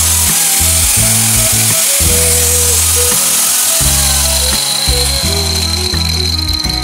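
Electric angle grinder running free with its disc spinning and not cutting, a steady high whine and hiss, over background music with a plodding bass line.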